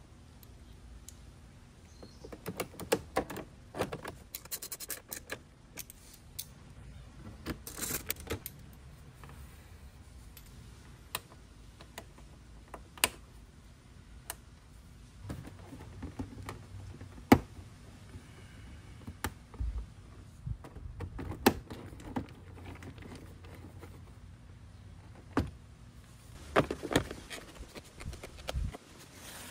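Body panels of a Yamaha TMAX scooter being refitted by hand: irregular metallic clicks and small rattles from a hand socket driver and panel bolts, with plastic knocks and snaps as the fairing and floorboard panels are pressed into place. One sharp click stands out about halfway through.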